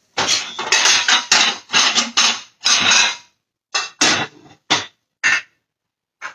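Kitchen dishes and utensils clattering and scraping while a plate is served: a dense run of knocks and scrapes for about three seconds, then four short separate clinks.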